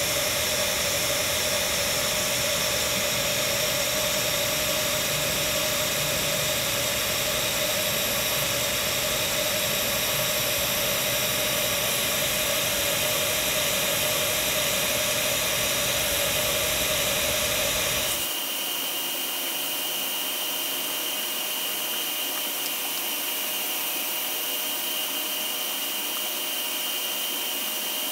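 Autogenous DC TIG welding arc on stainless sanitary fittings, a steady hiss with a held tone under it. About two-thirds of the way through the sound changes abruptly: the low rumble drops away and a thin high whine carries on with the hiss.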